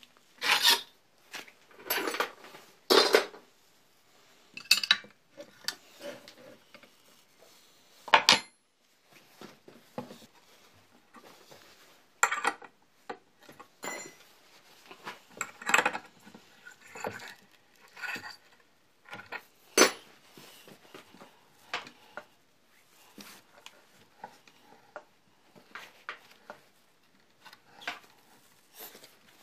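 Irregular metallic clanks and knocks from a switched-off angle grinder being swung and repositioned on a homemade steel pivoting stand. The knocks come singly at uneven intervals, and the loudest come in the first few seconds and at about eight seconds in.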